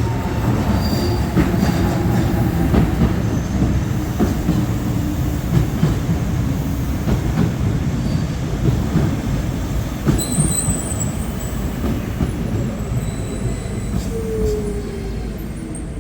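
Passenger train running on the rails with a dense low rumble and many wheel clicks. A brief high-pitched wheel squeal comes about ten seconds in, and a short falling whine near the end as the sound eases.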